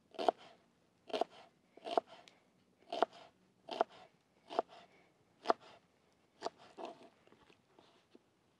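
Knife cutting through a white onion onto a wooden cutting board: about eight crisp crunching cuts, roughly one a second, with a few lighter taps near the end.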